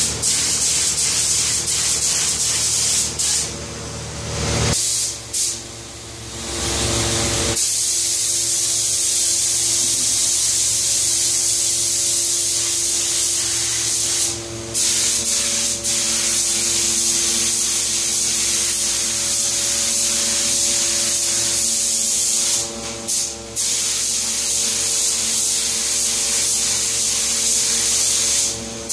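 Gravity-feed compressed-air spray gun hissing steadily as it sprays paint, over a steady low hum. About three seconds in the spray stops for a few seconds as the trigger is let go, and it breaks off briefly twice more later.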